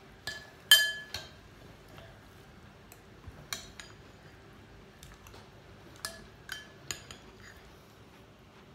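Metal spoon clinking against a ceramic bowl while scooping up tea-soaked biscuits: a handful of sharp, ringing clinks. The loudest comes about a second in, and a few more follow between six and seven seconds in.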